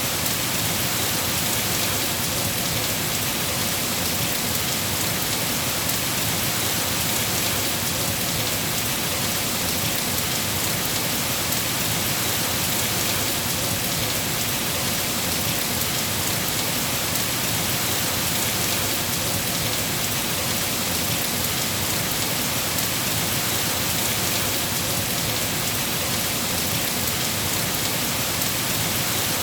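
Steady rain falling, an even, unbroken hiss of drops that neither builds nor fades.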